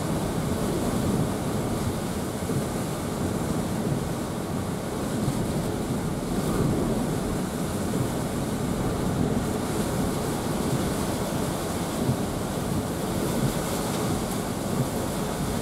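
Hurricane wind and driving rain buffeting a vehicle, heard from inside the cabin as a steady rushing noise.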